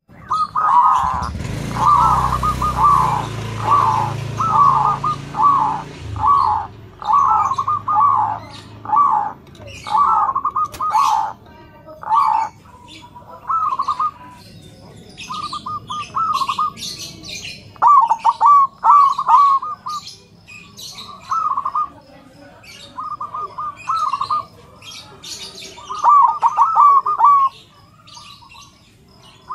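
Zebra dove of the silver colour form cooing: short, rolling, stuttering phrases repeated about once a second, then at longer gaps. Higher, sharp chirps of small birds come in from about a third of the way in.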